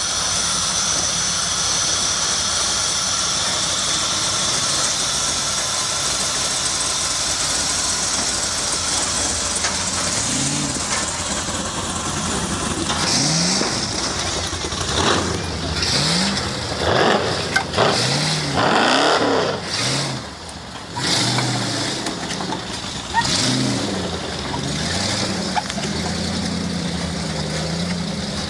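Off-road vehicle engine running, then revved up and down again and again through the second half, with short loud surges of noise.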